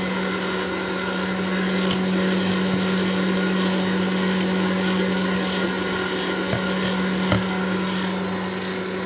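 Electric stand mixer running steadily, whipping egg whites. A wire whisk stirring chocolate cream in a glass bowl gives a few light clicks over it.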